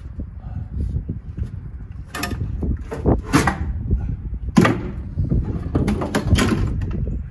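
Scrapes and knocks of the aluminum john boat, its paddle and outboard motor against a low concrete bridge as the boat is pushed under it by hand, several sharp bumps between about two and six and a half seconds in, over a steady low rumble.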